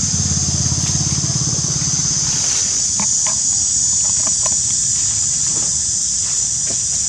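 Steady high-pitched insect buzzing from an insect chorus. A low rumble fades out about two and a half seconds in, and a few short chirps come in the middle.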